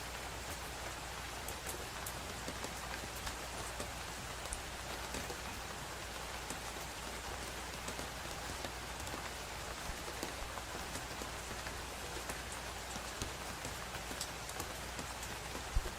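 Steady rain falling, with scattered ticks of individual drops and a single sharper knock near the end.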